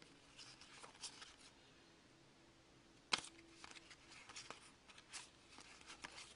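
Faint rustling and clicking of trading cards being handled and flipped through one by one, with a sharper tap about three seconds in.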